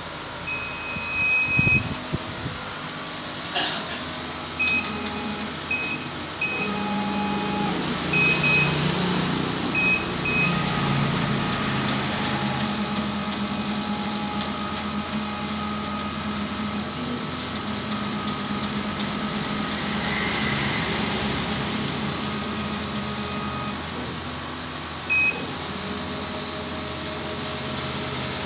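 CO2 laser cutter running a job: the gantry's stepper motors whine at shifting pitches as the laser head travels over the bed, over a steady machine hum. Several short electronic beeps sound in the first ten seconds, and one more near the end.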